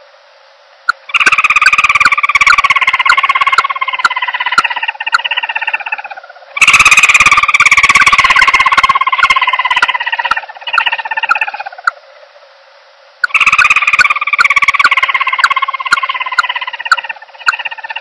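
Bird-trapping lure recording of the call sold as the common emerald dove's "chằng nghịch" call. It comes as three long bursts of a fast-pulsing call, each about five seconds, each falling slowly in pitch, with short pauses between them.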